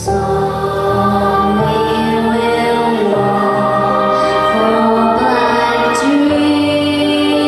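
A song being sung over instrumental accompaniment, with long held sung notes above a steady low line.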